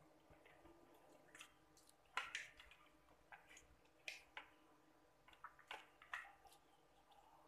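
Faint, wet squelches and slaps of bare hands rubbing a sticky turmeric-and-cornflour coating onto a whole baung catfish: a handful of short, sharp squishes at uneven intervals.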